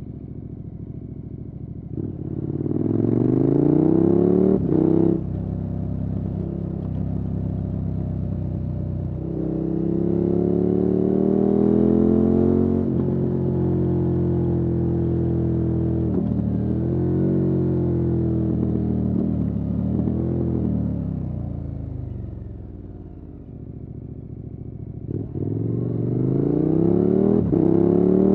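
KTM 1290 Super Adventure S's V-twin engine through a Wings aftermarket exhaust, pulling up through the gears with short breaks at each shift. It eases off and drops in pitch about three quarters of the way in, then accelerates again.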